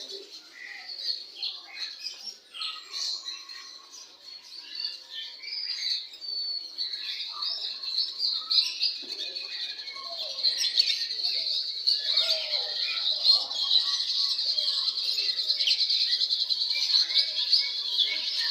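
Many caged songbirds chirping and calling at once in a dense, overlapping chorus of high, short notes. It thickens and gets louder about halfway through.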